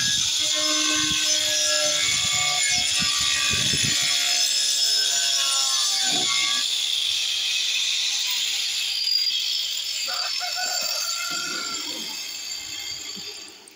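Angle grinder with a cutting disc running and cutting through a Saltillo clay tile, a steady high-pitched whine that fades out near the end.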